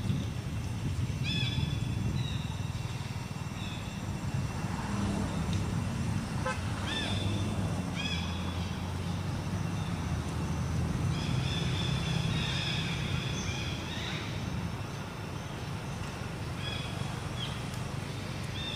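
Steady low rumble of a motor vehicle's engine running nearby. Over it come short high chirping calls, a few at a time, with a longer run of them about two-thirds of the way through.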